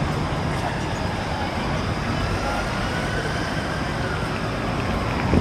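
Steady road traffic noise from passing vehicles in a city street.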